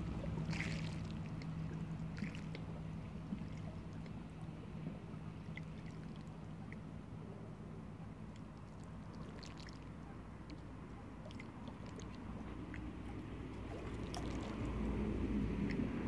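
Small waves lapping and trickling over pebbles at the water's edge, with scattered little splashes. A low engine hum fades out in the first seconds, and a low rumble swells near the end.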